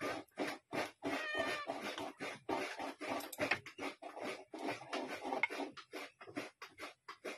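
A rapid, irregular run of short animal calls, several a second, some of them pitched.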